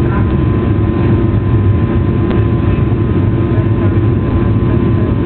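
Steady, loud drone of an airliner's jet engines and airflow, heard inside the passenger cabin, with a low rumble and a few steady whining tones held throughout.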